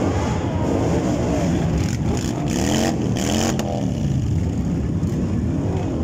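A large group of motorcycles riding slowly past, many engines running together and revving, their pitches rising and falling. A harsher, louder stretch of revving comes about halfway through.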